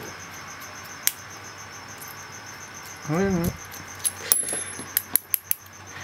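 Sparse small metal clicks and taps of a hand lock pick and a brass euro cylinder being worked and handled, with one sharp click about a second in and a quick cluster of clicks and taps between about four and five and a half seconds.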